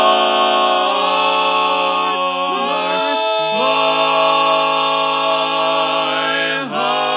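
Four-part barbershop harmony sung a cappella by one man multitracked into four voices, holding long chords on an open vowel for the ending of the tag. The chord moves a few times, with the bass line dropping in a short pause about three seconds in, and there is a brief break near the end before a new chord starts.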